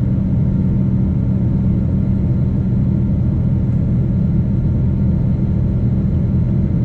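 Boeing 777-200 in its initial climb: a steady, unbroken low rumble of engine and airflow noise.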